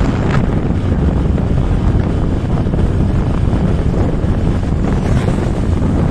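Loud, steady wind buffeting the microphone of a camera moving along a road, with a low rumble underneath.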